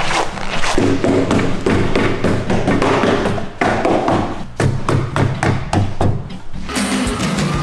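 Repeated knocks and taps from a car trunk lid being handled and worked on with hand tools, over background music.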